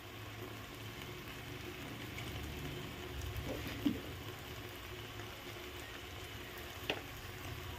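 Chicken korma with its thick masala sizzling gently in a kadhai as the chicken cooks, a faint steady hiss with a low hum under it. A faint tap comes about four seconds in, and another near the end.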